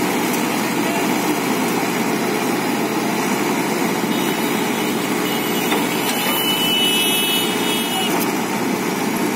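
JCB JS81 excavator's diesel engine running steadily, with a faint high whine about two-thirds of the way through.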